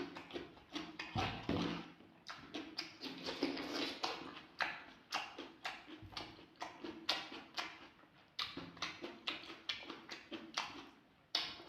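Close-miked chewing of rotisserie chicken: an irregular run of sharp mouth clicks and smacks, about two or three a second.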